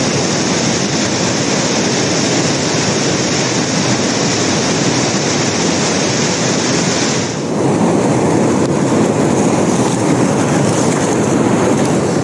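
Steady rushing of a big whitewater river rapid, churning water over rocks. About seven seconds in the rush turns duller and fuller, heard close up from a kayak running the whitewater.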